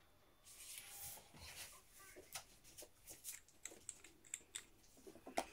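Faint handling noises: a soft hiss early on, then scattered light clicks and ticks as a small nail polish bottle and its brush cap are handled over the table.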